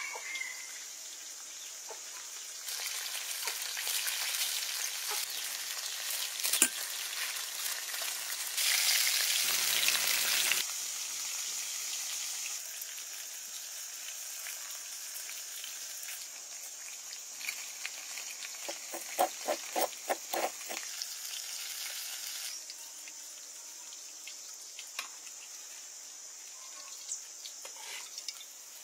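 A steady high hiss, shifting in level several times, under light clicks and rustles of gloved hands handling food and dishes, with a quick run of about six taps around twenty seconds in.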